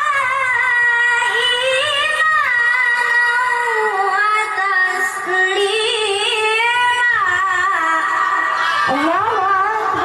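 A child qari reciting the Quran in melodic tilawah style: one high voice holding long, ornamented notes with wavering runs, with a quick rising glide near the end.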